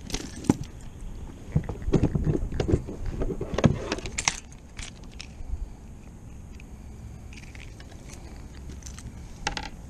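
Metallic jingling and clicking from fishing tackle, like a lure's hooks rattling, while a freshly landed bass is handled. It is busy with sharp clicks for about the first four and a half seconds, then quieter.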